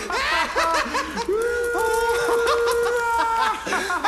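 A group of men and women laughing and whooping together, many voices overlapping, with a long held call through the middle.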